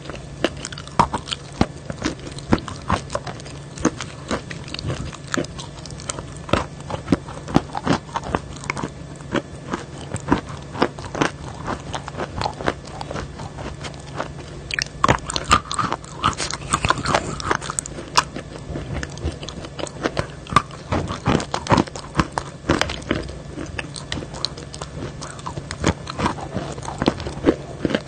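Close-miked chewing and biting of a wet chalky paste: dense sharp clicks, crunches and smacks from the mouth and lips. A low steady hum runs underneath.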